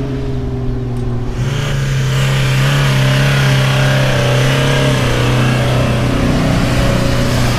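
Toyota Hilux pickup's engine pulling steadily under load as it climbs a soft, rutted sand dune slope: a steady drone. The engine note shifts about a second and a half in.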